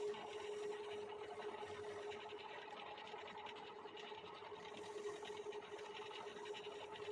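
Wood lathe running, a steady motor hum with a dense, rough noise above it that does not let up.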